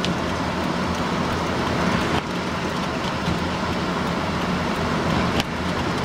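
A pickup truck's engine runs steadily under the constant rush of blizzard wind and blowing snow.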